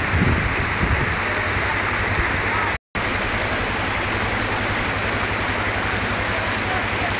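Rushing creek water over rocks with a Suzuki ATV engine running low underneath it. The sound cuts out completely for a split second about three seconds in, then resumes unchanged.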